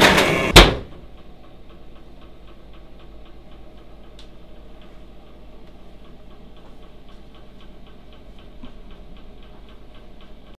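A sharp hit about half a second in ends a louder sound. After it a clock ticks steadily and faintly, about four or five ticks a second, over a low room hum.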